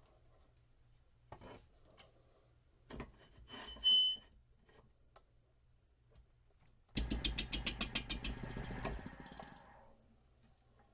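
Wood lathe turning an off-balance wooden blank, with the gouge catching the uneven wood: a sudden rapid knocking of about eight to ten strokes a second, lasting about two seconds and then fading. Before it there are only scattered small clicks.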